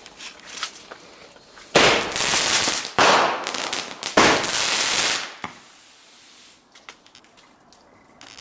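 Consumer firework from a supermarket selection box going off: three loud bursts of hiss and crackle about a second apart, each starting sharply and dying away, with scattered small cracks before and after.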